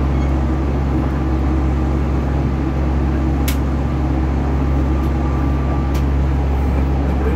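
UP Express diesel multiple-unit train running, heard from inside the passenger car: a steady low rumble and hum. Two short sharp clicks come midway and near the end.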